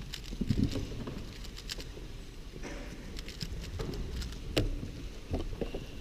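Irregular light clicks and taps over the low steady hum of a large hall. Near the end, a quick cluster of clicks as a speedcube is turned.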